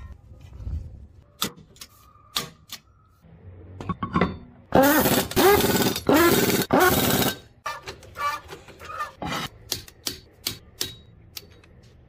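Impact wrench running lug nuts onto a steel wheel in three loud bursts of about a second each, a little after the middle. Scattered sharp metallic clicks and knocks from tools and parts come before and after.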